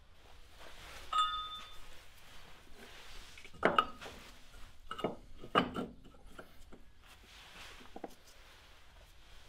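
Metal tool parts of a bush removal sleeve kit being handled and fitted against a car's rear axle bush: one short ringing clink about a second in, then a few sharp metal knocks and clunks, the loudest a few seconds in, and a lighter one near the end.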